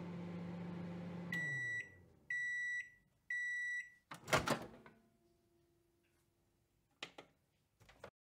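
Microwave oven running with a steady hum that stops about a second in, then three beeps about a second apart marking the end of the cooking cycle, followed by a loud clunk of the door being opened and two small clicks near the end.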